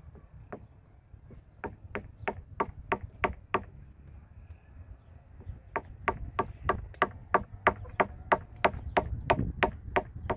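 Hammering: a steady series of sharp knocks, about three a second, in two runs with a short pause between them, as the blanket is fixed to the hut's frame.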